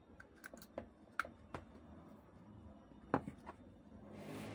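Light clicks and taps of a small plastic plug adapter being handled, with one sharper knock about three seconds in as it is set down on the bench. Plastic wrapping starts to rustle near the end.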